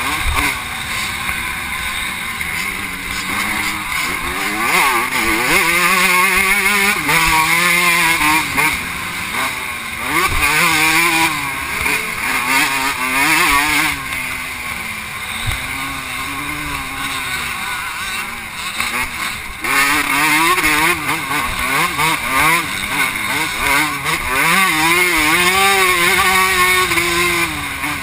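Vintage 125 cc two-stroke motocross bike revving hard through the gears, its engine pitch climbing and dropping again and again as the rider shifts and rolls off, with wind rushing over the helmet-mounted microphone.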